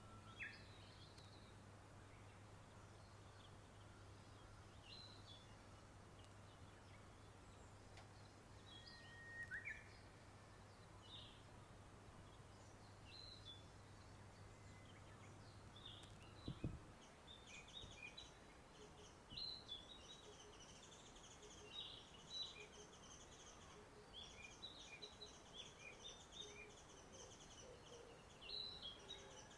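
Faint songbirds chirping, with scattered short calls at first and denser, more continuous song in the second half. A low steady hum runs under the first half and stops with a click about halfway through.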